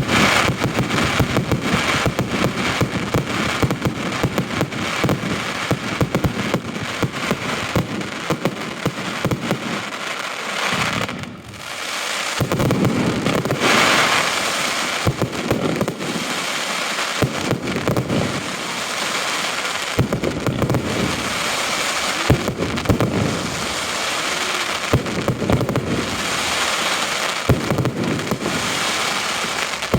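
Fireworks display going off: dense, rapid crackling and popping for about the first ten seconds, a brief lull, then single bangs every two or three seconds over continuous crackling.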